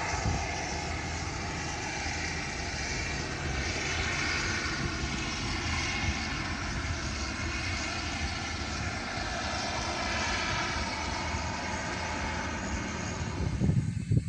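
Turboprop airplane engine and propeller running with a steady drone; the higher part of the sound cuts off suddenly near the end.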